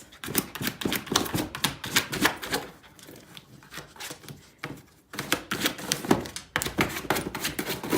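A small dog's claws clicking and scratching in rapid, irregular strokes as it paws excitedly. The strokes thin out around the middle and come thick again after about five seconds.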